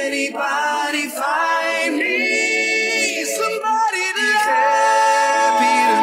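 A song's lead vocal isolated by Spleeter stem separation: a singing voice alone, with no instruments and no low end. The singer ends on a long held note over the last second and a half.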